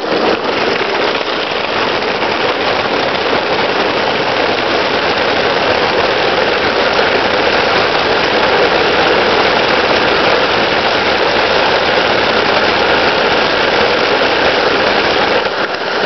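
Hard plastic tricycle wheels rolling fast downhill over cobblestones and pavement: a steady, unbroken rattling noise.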